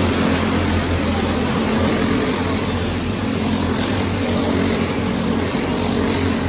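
A pack of racing go-kart engines running at speed as the karts lap and pass close by, a steady overlapping drone.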